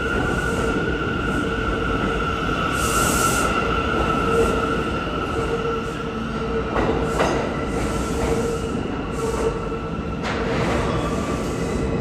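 R179 subway train pulling out of the station, the cars rumbling and the wheels squealing on the rails with a steady high-pitched tone.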